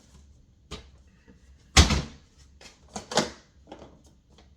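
Knocks and clunks of kitchen things being handled while coffee is set up. One sharp knock about two seconds in is the loudest, with a few more clicks and clunks about a second later.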